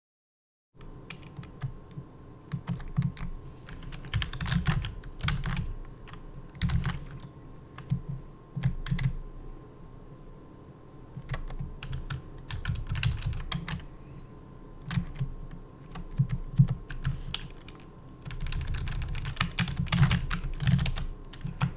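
Typing on a computer keyboard, uneven bursts of key clicks with short pauses, starting about a second in, over a faint steady hum.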